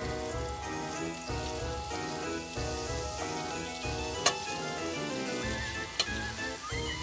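Chopped onion, garlic and ginger sizzling in butter in a steel pot, stirred with a wooden spoon, with two sharp knocks about four and six seconds in. Light background music plays underneath.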